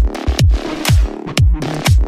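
Electronic dance music with a steady kick drum beat, about two beats a second.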